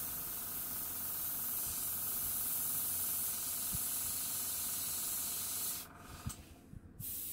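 Cheap no-name pistol-grip airbrush with a 0.3 mm needle, a clone of the Iwata Revolution TR, spraying: a steady hiss of air through the nozzle. The hiss stops for about a second near the end, with a few faint clicks in the pause, then starts again.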